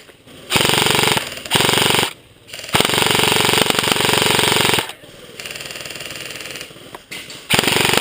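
Airsoft electric rifles firing full-auto bursts, a fast buzzing rattle. There are several bursts, the longest about two seconds, with fainter fire in between.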